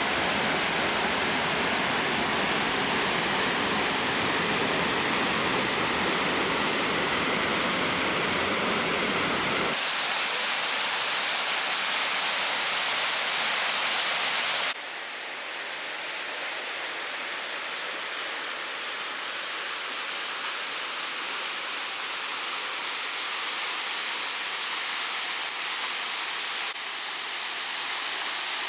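Waterfall's falling water rushing in a steady, even wash of noise. About a third of the way in the sound turns abruptly thinner and hissier, with the deep part gone, and it shifts twice more later, as one shot gives way to another.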